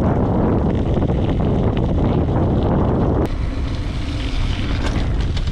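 Wind buffeting the microphone of a moving bicycle, a loud, steady rushing noise that eases a little about three seconds in.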